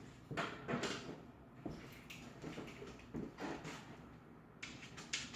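Handling noise: a series of soft knocks and rustles, then a quick run of light ticks near the end.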